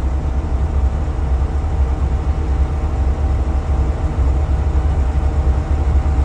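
Cummins diesel engine of a JLG 1255 telehandler idling steadily in neutral, heard from the cab. The machine is showing a fault because the engine computer has not registered a newly fitted DEF header.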